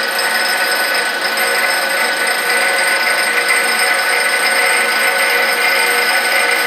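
Abrasive grinding wheel running against the helical flute of an end mill, which turns in a motor-driven rotary holder: a steady high whine with several held tones over a grinding hiss.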